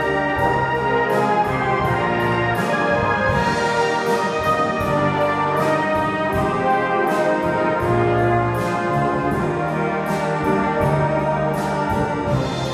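Brass band playing a piece, with sustained chords over held bass notes and a steady beat, in the resonant space of a large stone church.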